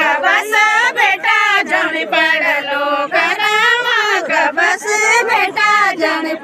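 A group of women singing a Garhwali jhumailo folk song together in chorus.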